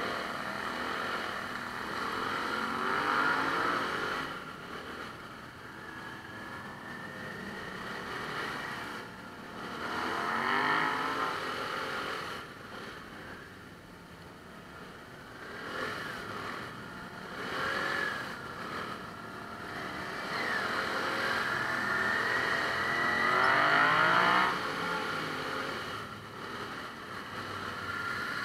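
Motorcycle engines on a slow group ride, heard from on board one of the bikes; the nearest engine's revs rise and fall several times as it pulls away and eases off, the loudest surge near the end.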